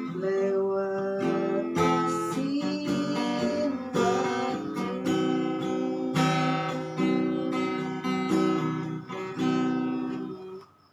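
Acoustic guitar strumming chords, with a fresh strum about once a second, fading out near the end.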